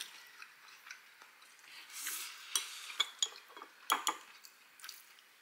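Metal chopsticks clicking against a ceramic plate and a small sauce bowl, a few sharp clicks with the loudest about four seconds in.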